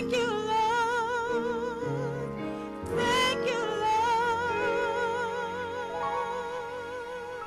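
Female gospel singing with a wide vibrato on long held notes, accompanied by piano. A louder phrase rises about three seconds in.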